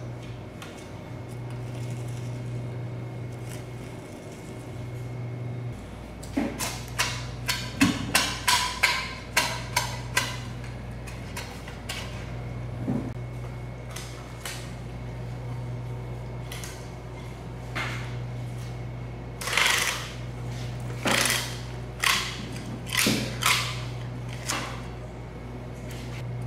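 A large knife cutting through a giant bluefin tuna on a wooden board, heard as sharp knocks, taps and scrapes against bone and board. They come in two runs, one starting about six seconds in and another near the end, over a steady low hum.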